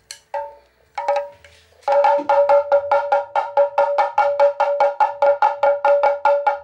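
Background music. A few single struck notes, then from about two seconds in a fast, even run of short pitched percussive notes, about five a second.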